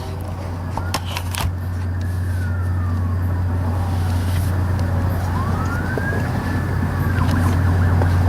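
Loud, steady low drone, the 'strange sound' presented as unexplained, with a faint tone that slides slowly down over a few seconds, then rises and falls again near the end, like a distant siren.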